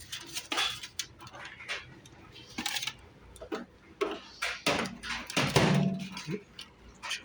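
Irregular clicks, knocks and light clatter of small hard objects being handled, busiest near the end.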